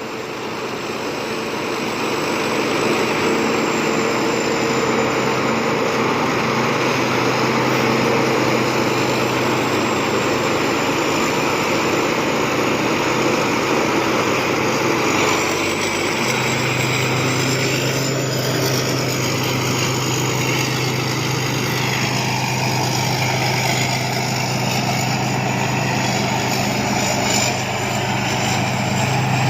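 Thai Seng Yont combine harvester running steadily, its engine and machinery making a continuous drone. About halfway through, a low hum in the engine note grows stronger.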